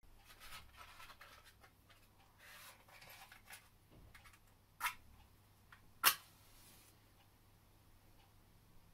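A matchbox handled and slid open with soft rustles, then a match struck against the side of the box twice, the second strike flaring with a brief hiss.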